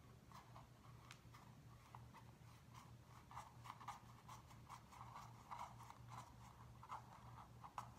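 Faint scratchy rustling and small irregular clicks of a plastic screw-foot being turned out of a bioplastic enclosure by hand, over a low steady hum.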